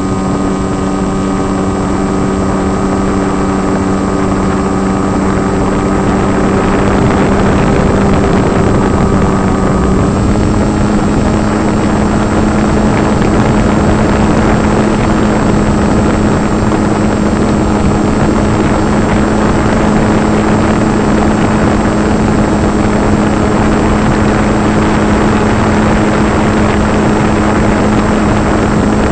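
Electric brushless motor and propeller of a foam RC plane heard from a camera mounted on the plane: a steady hum with wind rushing over the microphone. The pitch steps up slightly about ten seconds in and the wind noise grows.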